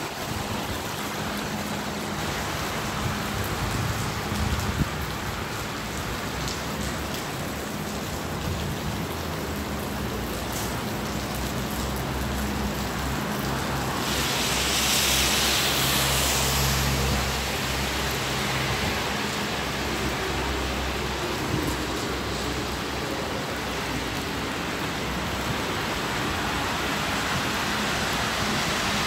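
Rain falling on wet paving, a steady hiss with a low traffic hum under it; the rushing gets louder for a few seconds about halfway through.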